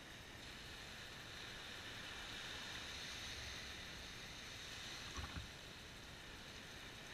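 Faint wash of shallow surf running over sand, a steady hiss that swells through the middle, with a brief knock about five seconds in.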